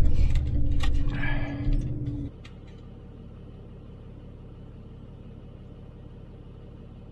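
Car engine running with a low rumble, with several sharp clicks and a brief squeak over it; the rumble stops abruptly about two seconds in, leaving only a steady faint hum.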